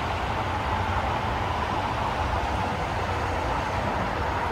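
Steady rumble of traffic passing over an elevated concrete bridge overhead.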